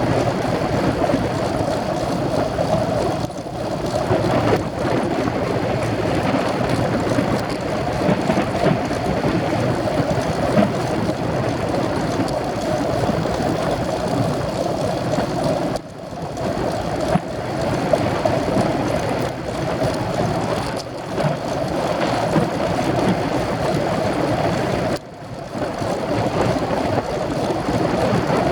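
Steady rushing wind noise on the camera microphone while riding a racing bicycle, with brief sudden dips about 16 and 25 seconds in.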